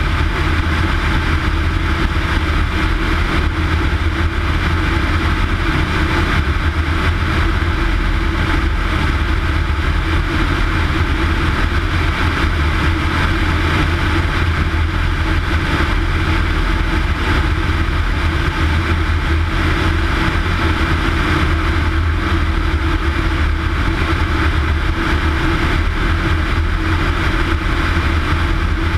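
Single-engine Cessna's piston engine and propeller running steadily in flight, heard from outside the cabin with wind rushing over the microphone.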